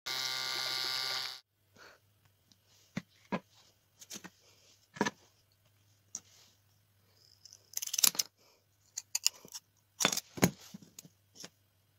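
A steady pitched buzz for about the first second and a half. Then small clicks and knocks of a wooden popsicle stick being handled on a tabletop, and scissors snipping through the stick, the loudest snips near eight and ten seconds.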